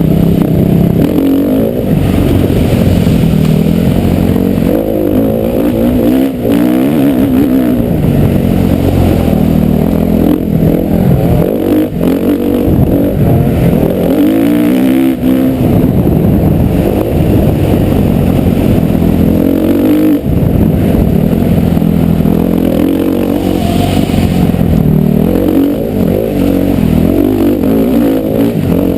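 Motocross bike engine revving hard and easing off over and over, its pitch rising and falling with the throttle, loud and close.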